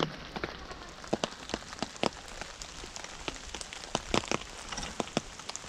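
Runners' footsteps on pavement: irregular sharp footfalls over a low steady rumble.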